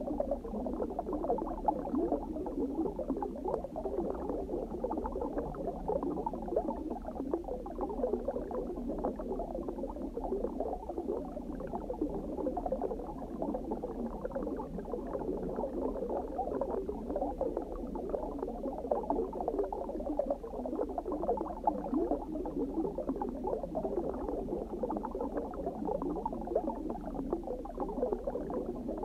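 Steady underwater bubbling and gurgling, dense and unbroken, with a low steady hum beneath it.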